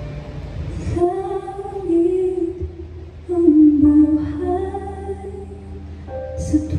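A woman singing a slow ballad into a handheld microphone: two held phrases with vibrato, and a third beginning near the end, over a steady low hum.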